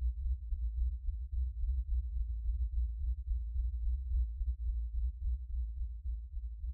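Deep, low rumbling drone with an uneven, wavering level and nothing higher-pitched over it: a cinematic sound bed laid under title cards.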